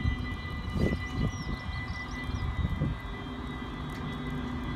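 DB Cargo class 6400 diesel-electric locomotive running steadily as it hauls ballast hopper wagons past, with a constant engine drone and steady high-pitched ringing tones over it, and a few low thumps about a second in and near three seconds.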